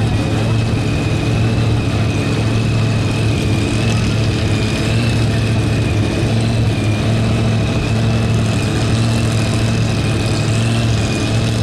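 Supercharged engine of a pulling tractor running loudly and steadily without revving, a steady high whine sitting over the deep engine note.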